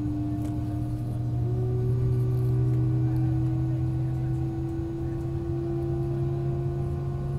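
Jet airliner's engines running at low taxi power, heard inside the cabin: a steady low hum with a tone that slowly rises in pitch.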